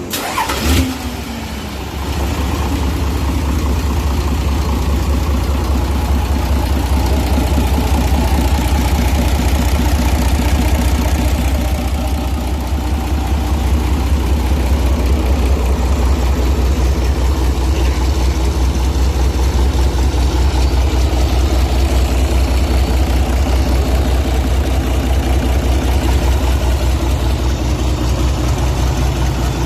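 Isuzu 6BG1 inline-six diesel engine, the non-turbo version, started up: a brief clatter of cranking in the first second, then it catches about two seconds in and idles steadily with an even pulsing beat.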